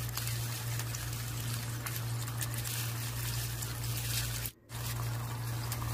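Bell pepper and green chilli strips sizzling in hot oil with oyster sauce just poured into the pan, an even fine crackle over a steady low hum. The sound cuts out for an instant about four and a half seconds in.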